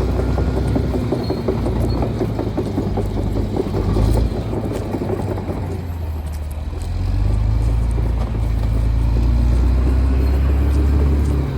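Caterpillar D6R XL bulldozer's diesel engine running with rattling track clatter. The engine note grows louder and fuller from about seven seconds in, as it takes on more load.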